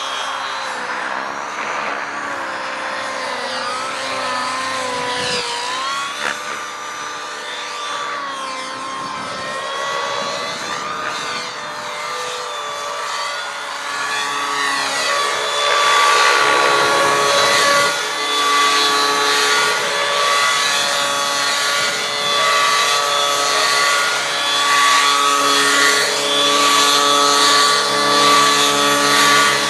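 Nitro-engined Align T-Rex 700 RC helicopter in flight: its glow engine and rotor whine rise and fall in pitch as it manoeuvres, then run louder and steadier from about halfway through, as it comes in close and hovers low.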